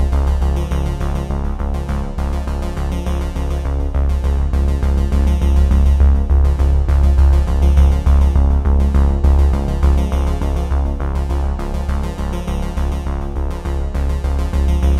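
Electronic background music with a synthesizer and a strong, steady bass line, running without a break.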